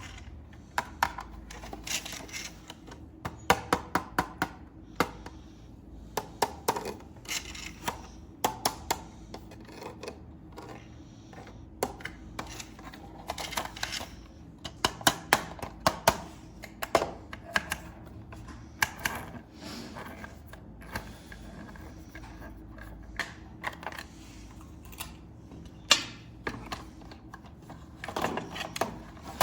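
Hard plastic clicking and tapping in quick irregular clusters, as plastic toy parts and packaging are handled.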